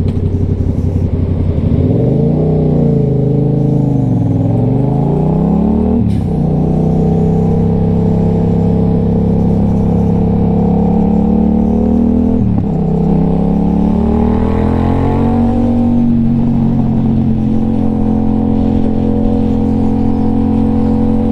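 Motorcycle engine under way, heard from the rider's mic: the pitch wavers and climbs, drops sharply at gear shifts about six and twelve seconds in, then climbs again and settles into a steady cruise for the last few seconds.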